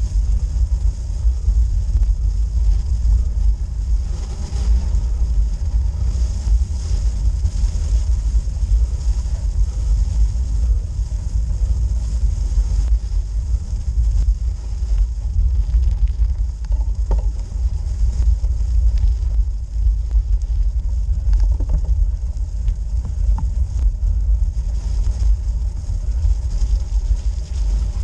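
Steady, buffeting low rumble on a bike-mounted action camera while a road bike climbs a snow-covered forest road: wind on the microphone and the tyres rolling over the rough surface, with a few faint ticks near the middle.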